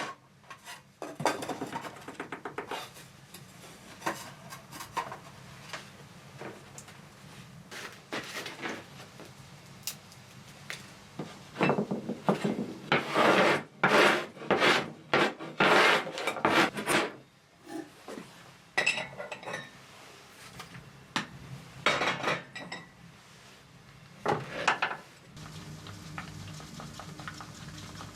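Irregular scraping and clattering of hard objects being worked by hand, heaviest in a long run of scraping strokes in the middle. A low steady hum starts near the end.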